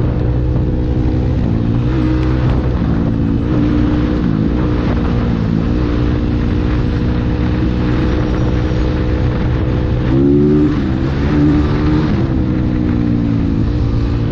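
Motorcycle engine running steadily under way, its pitch dipping and rising with throttle changes, with a brief rev-up about ten seconds in.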